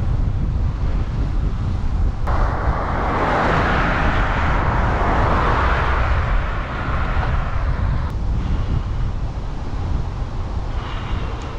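Wind buffeting the camera microphone of a bicycle being ridden at speed, a steady low rumble. A hiss of rolling noise cuts in suddenly about two seconds in and stops just as suddenly about eight seconds in.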